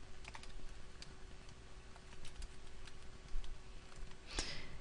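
Computer keyboard being typed on: a scattered series of light key clicks.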